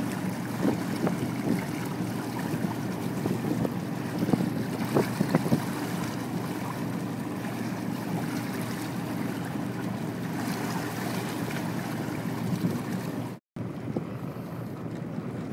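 Wind buffeting the microphone over water washing against a reed boat under sail, with occasional small splashes. The sound cuts out abruptly for a moment about thirteen seconds in and comes back quieter.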